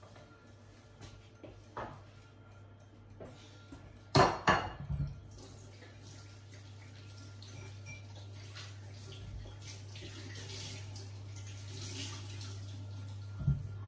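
Washing up at a kitchen sink: dishes knock and clatter sharply a few times about four seconds in, then tap water runs steadily, with one more clunk near the end. A low steady hum runs underneath.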